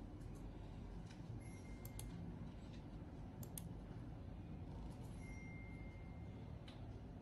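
A few faint, separate computer mouse clicks over a low steady room hum.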